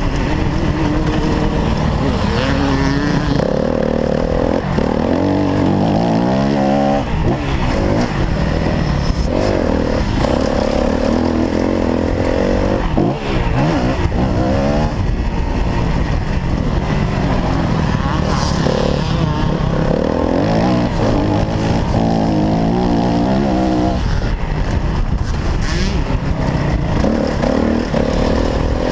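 Honda CRF250R's single-cylinder four-stroke engine under hard riding, revving up and dropping back again and again as the rider accelerates, shifts and rolls off for turns.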